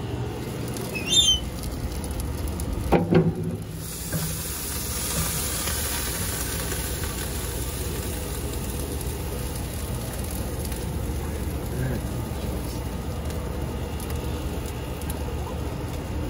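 Lid of a barrel smoker lifted open with a clunk about three seconds in, followed by a steady sizzling hiss from the brisket cooking on the hot grate.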